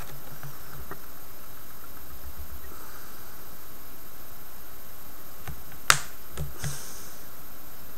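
Alligator-clip test leads being handled and set down on a wooden desk: one sharp click about six seconds in, with a few fainter clicks around it, over a steady background hiss.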